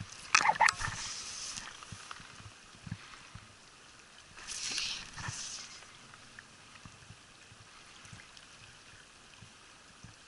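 Water splashing in two short bursts, a sharp one about half a second in and a softer one near the middle, over faint running water.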